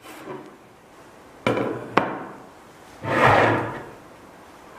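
Hard parts being handled on a work surface: two sharp knocks about one and a half and two seconds in, then a longer, louder clunk and scrape about three seconds in.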